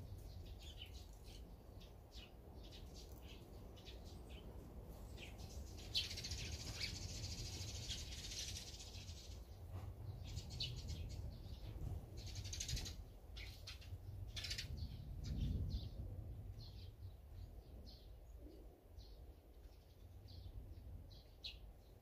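Small songbirds chirping: many short, high chirps scattered throughout, with a denser run of calls from about six to nine seconds in.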